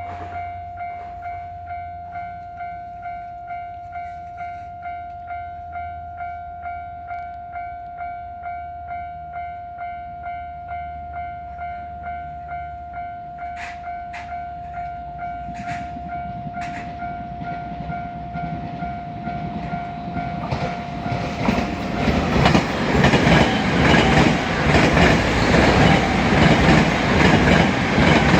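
Japanese level-crossing alarm ringing in an even, repeating rhythm as a JR West 283 series limited express electric train approaches with a rising rumble. From about twenty seconds in the train passes loudly over the crossing, its wheels clacking rhythmically over the rail joints.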